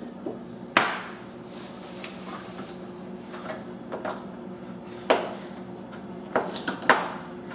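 Dishes and utensils knocking and clattering on a table: about six sharp knocks at uneven intervals, the loudest about a second in and a quick cluster near the end, over a steady low hum.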